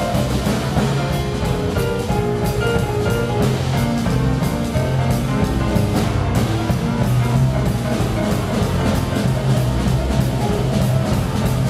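Jazz-blues combo playing a boogie-woogie tune: a Roland digital stage piano takes the lead over a plucked double-bass line and a drum kit with steady cymbal strokes. The tenor saxophone is silent.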